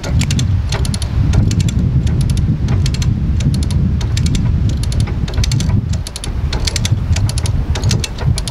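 Ratchet of a hand-operated come-along winch clicking in quick runs, about two a second, as its handle is pumped to winch a tree stump out of the ground. Heavy wind rumble on the microphone runs underneath and is the loudest sound.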